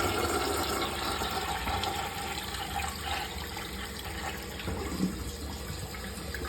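Toilet flushing on a test flush after a new fill valve was fitted: water rushes steadily through the bowl, easing off gradually as the tank empties and water keeps running in.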